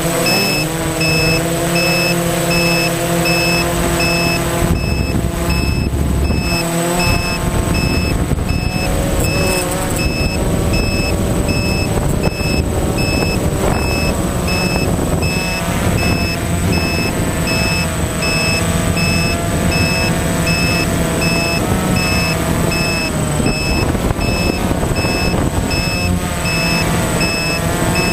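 DJI Phantom FC40 quadcopter's four electric motors and propellers buzzing in flight, heard from the onboard camera, their pitch wavering as the drone slows and descends. A faint, fast, even beeping and a steady high whine run underneath.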